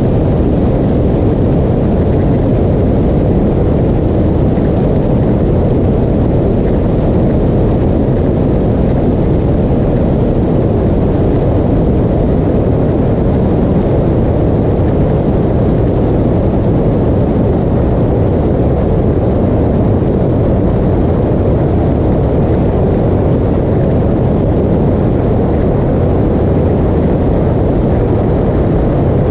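Steady low rumble of wind and road noise from a motorcycle cruising at speed, picked up by a camera mounted on the bike.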